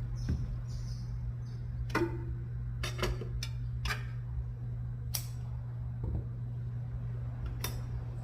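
Scattered sharp clicks and knocks, about eight in all, some leaving a brief ring, over a steady low hum.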